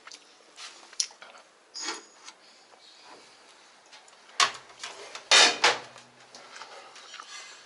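Clicks and knocks of tools and washing-machine parts being handled during disassembly, with the loudest clatter about four and a half and again about five and a half seconds in.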